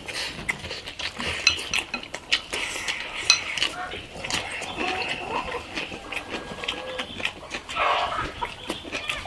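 Two people eating noisily, with chewing and lip-smacking, and many short clicks of chopsticks against porcelain rice bowls.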